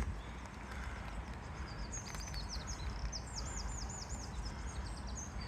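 A small songbird singing high, quick phrases, with a fast run of repeated notes about three seconds in, over a steady low rumble.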